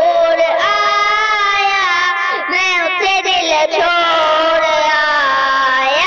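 Music: a high melody of long held notes that bend and glide from one to the next.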